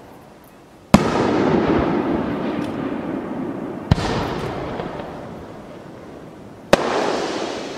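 Aerial firework shells bursting: three sharp booms, about a second in, at about four seconds and near the end, each followed by a rumbling echo that fades over a few seconds.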